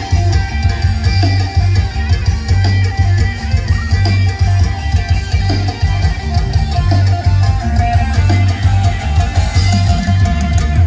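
Live band music, loud and continuous, with guitar and drum kit over a heavy, pulsing bass.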